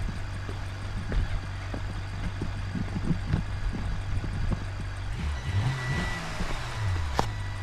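Simulated truck engine sound effect, idling steadily, then revving up and down from about five seconds in, with scattered light knocks.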